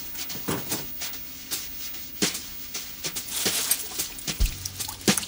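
Broken glass and debris clinking and rattling as someone handles smashed wreckage, with irregular small clicks and a dull thump about four seconds in.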